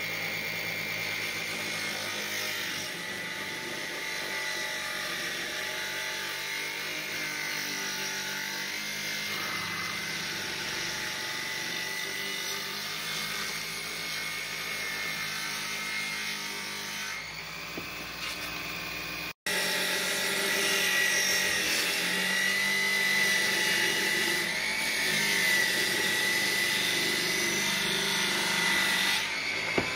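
Circular saw mounted under a homemade table saw running with a steady high whine while its blade rips a sheet of film-faced plywood pushed along the fence. After a momentary gap about two-thirds of the way through, it is louder and the whine wavers under the load of the cut.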